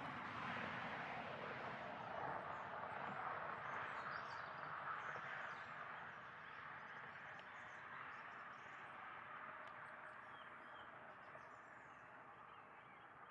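Faint outdoor ambience: a steady hiss that eases off about six seconds in, with small birds chirping now and then.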